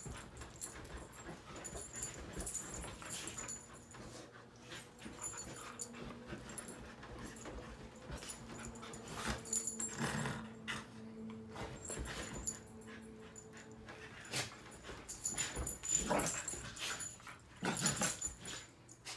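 Two dogs play-wrestling on a bed: irregular scuffling and rustling of the bedding, with low growls and whines. The loudest scuffles come about ten seconds in and again near the end.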